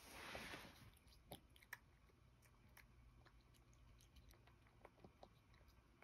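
A cat eating from a ceramic bowl: faint chewing and licking clicks, scattered and irregular, after a brief soft rush of noise in the first second.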